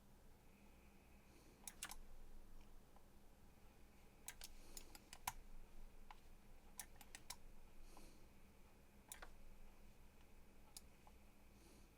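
Scattered clicks of a computer mouse, about a dozen, some in quick pairs, over a faint steady room hum.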